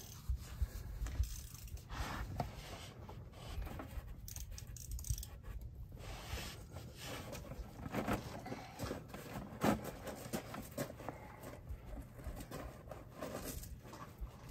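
Used diesel engine oil trickling from a tractor's sump drain hole into a part-filled drain pan, with a rag rubbing and scattered small clicks and scrapes from handling.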